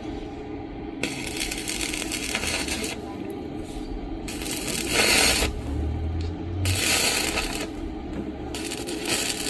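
Electric arc welding: four separate crackling, sizzling bursts of one to two seconds each as the arc is struck and run, with short gaps between.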